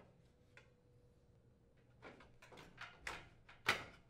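Sheet-metal knocks and scrapes as the control board support bracket is worked loose from the dryer's front bulkhead. It is nearly quiet for about two seconds, then a quick run of clanks, the loudest about three and a half seconds in.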